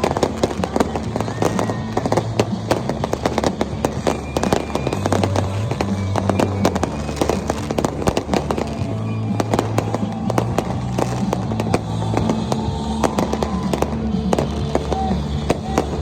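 Fireworks going off in a dense, irregular stream of bangs and crackles, many a second without pause. Music with a deep bass line plays underneath.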